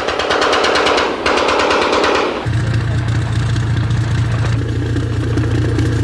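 Rapid automatic machine-gun fire at about a dozen rounds a second, in two long bursts with a short break just over a second in. About two and a half seconds in it gives way abruptly to a tank's engine running with a steady low drone.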